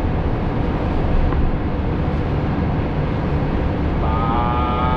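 Steady engine and road rumble of a moving vehicle, heard from inside its cabin. About four seconds in, a brief steady pitched tone joins it.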